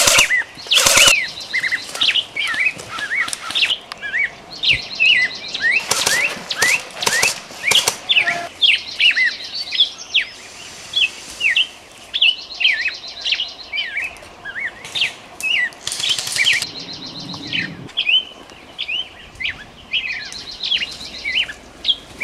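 Airsoft electric replica rifles firing repeated short bursts of rapid clicking shots. Small birds chirp over them throughout.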